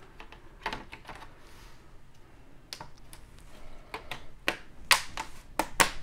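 Plastic clips of a laptop's bottom cover snapping into place as the panel is pressed down around its edges: a string of sharp clicks and snaps, the loudest ones close together near the end.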